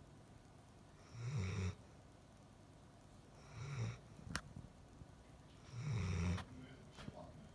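Slow, regular snoring: three snores about two and a half seconds apart, each a short low rumble with a breathy hiss. A sharp click falls just after the second snore.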